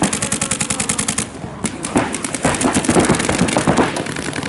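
Paintball markers firing rapid strings of shots, with a short break a little over a second in.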